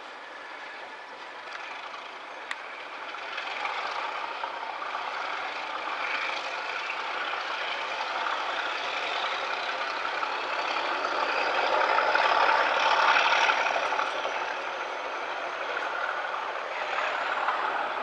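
A Class 37 diesel-hauled test train running away, its English Electric V12 engines and running gear making a continuous mechanical noise that swells to its loudest around the middle and then eases off. A high whine rises steadily in pitch through the second half.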